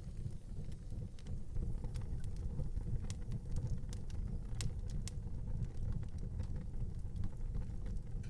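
Wood fire burning in an outdoor fireplace: a steady low rumble of flame with scattered sharp crackles and pops of the burning wood, the loudest two about halfway through.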